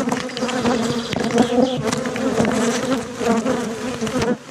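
Honeybees buzzing in a dense, steady hum around an open hive while a brood frame thick with bees is held up and handled.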